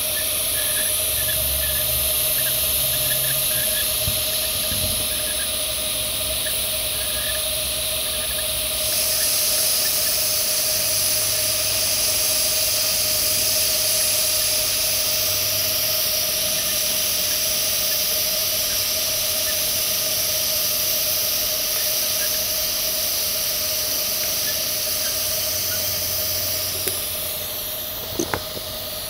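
TIG welding arc on carbon steel pipe during the root pass, the torch cup walked along the groove: a steady hiss with a constant hum under it. The arc stops near the end, followed by a few light clicks.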